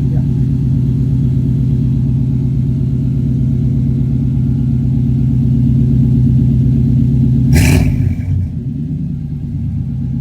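Small-block 305 V8 idling steadily through hand-made 2.5-inch turbo-muffler exhaust shortly after startup, running a little fat just after starting. About seven and a half seconds in there is a brief sharp noise, after which the engine sounds a little quieter.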